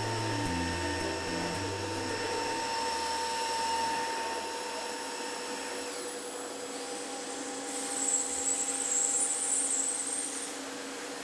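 CNC machining center running with several steady whining tones; the tones shift about six seconds in, and a hiss comes in from about eight to ten seconds.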